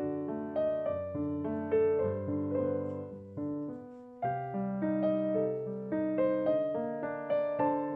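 Slow, gentle solo piano background music: struck chords and melody notes that ring and fade, with a brief lull about halfway through before the playing resumes.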